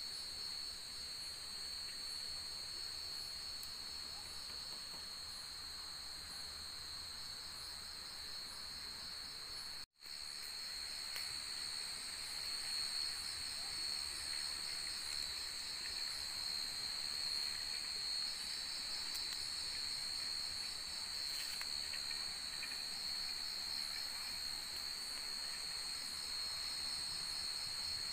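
Chorus of night insects in tropical forest: a steady high-pitched trilling and buzzing from many insects at once, some of it pulsing quickly. It drops out for an instant about ten seconds in.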